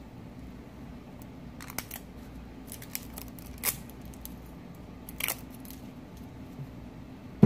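Small scissors snipping at the plastic film wrapped around a highlighter compact: a few separate, sharp snips and clicks spaced out over several seconds.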